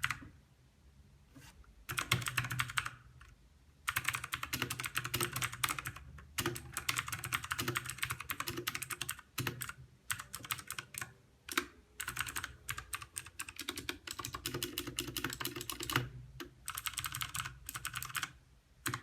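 Fast typing on an E-Element Z-88 mechanical keyboard with clicky Outemu Blue switches: dense runs of sharp key clicks in several bursts, broken by short pauses.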